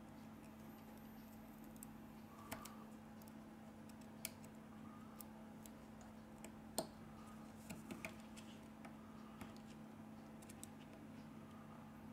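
Steel tweezers clicking and tapping against small parts inside an opened Xiaomi Redmi 8A smartphone: a few sharp clicks spaced irregularly, the loudest about seven seconds in, with a quick cluster about a second later.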